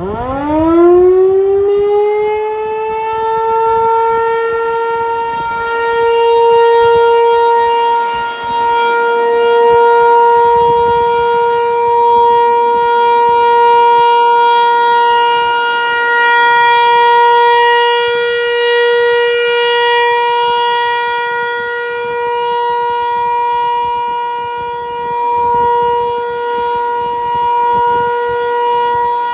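Federal Signal 508 outdoor warning siren winding up: its single tone glides quickly upward over the first two seconds, then holds one steady pitch that slowly swells and fades. This is the steady tone of a monthly siren test.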